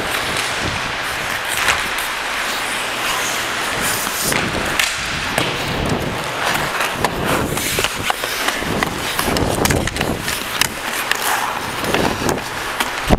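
Ice hockey play: skate blades scraping and carving on the ice under a steady hiss, with frequent sharp clacks of sticks and puck and occasional thuds.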